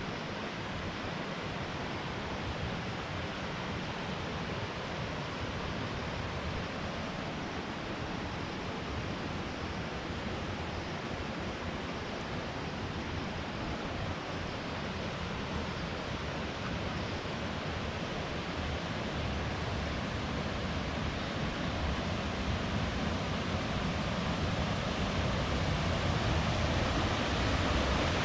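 Steady rush of falling and flowing water, slowly growing louder toward the end.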